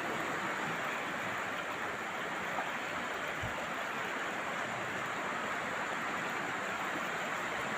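River water flowing in a strong current, a steady rushing sound without change.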